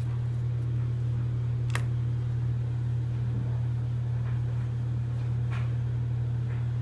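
A steady low mechanical hum, constant in pitch, with a few faint clicks over it.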